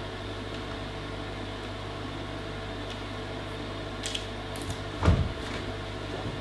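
A steady low machine hum, with a few light clicks about four seconds in and a louder low knock about five seconds in as a metal fudge tray is handled and lifted off the worktop.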